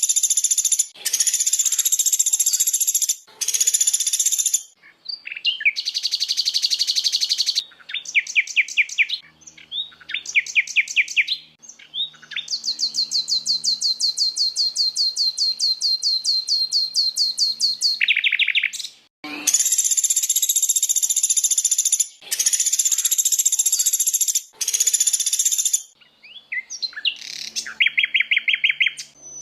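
Recorded songs of several songbird species played back to back, shrill and loud. Repeated dense high phrases alternate with rapid series of sharp notes, a long even trill of fast notes, and a quick falling sweep.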